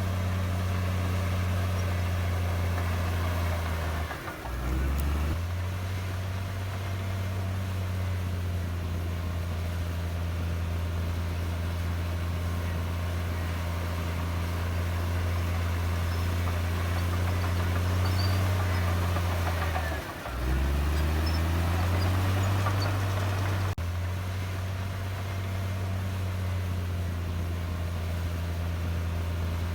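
Diesel engine of a Komatsu D58E bulldozer running steadily at a low hum. About four seconds in, and again about twenty seconds in, the engine briefly drops sharply in pitch and level, then picks back up.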